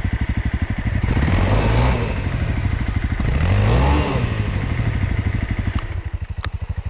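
Honda CRF250L's single-cylinder engine idling with a steady thumping beat, while engine revs rise and fall twice, about a second in and again around three to four seconds in.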